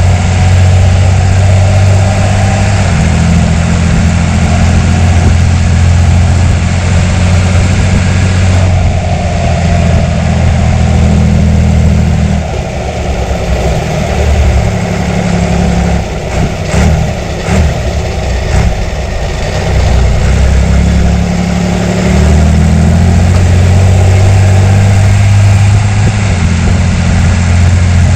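John Deere 3350's six-cylinder diesel engine running steadily. For several seconds in the middle its note drops and turns uneven, with a few short knocks, then it settles back into a steady run.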